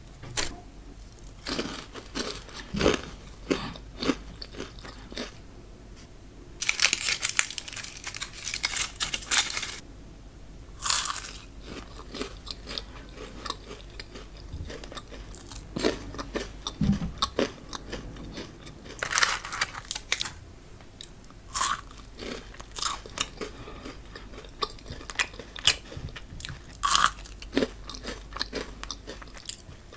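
Biting into and chewing Ferrero Rocher chocolates, the wafer shell and hazelnuts crunching, with denser bursts of crunching about seven, eleven, nineteen and twenty-seven seconds in.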